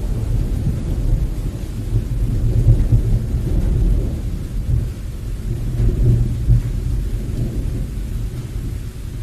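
Wind buffeting the microphone: a low, uneven rumble that swells and eases, strongest about three and six seconds in.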